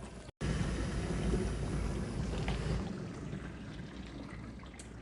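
Dishwasher washing: water sprays and sloshes inside the tub with a steady rush. The sound cuts out briefly just after the start, comes back louder, then eases off toward the end.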